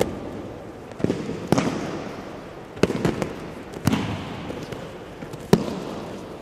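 Aikido breakfalls: bodies slapping and landing on tatami mats as partners are thrown, about six sharp slaps at irregular intervals. Each slap rings on in the echo of a large hall.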